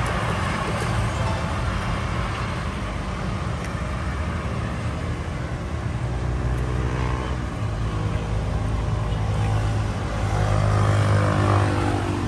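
Vehicles passing: a steady low motor and rumble with faint pitched engine tones, growing louder about ten seconds in.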